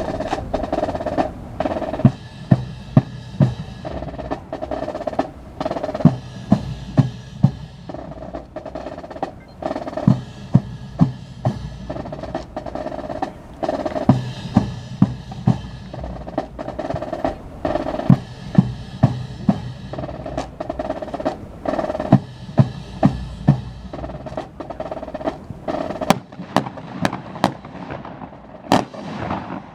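Snare and bass drum cadence beating out a steady marching rhythm, accenting the drill. Near the end come a few sharp, separate clicks.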